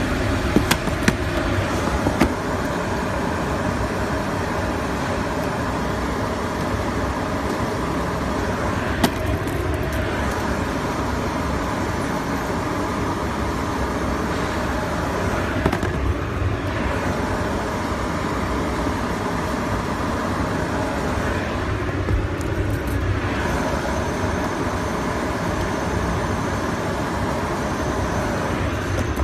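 Cling-film shrink packing machine running steadily: a continuous mechanical drone with a few sharp clicks in the first couple of seconds.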